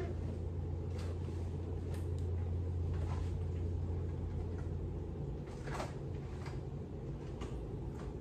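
A steady low hum, easing about five seconds in, with several scattered light knocks and clicks from things being handled, the clearest about six seconds in.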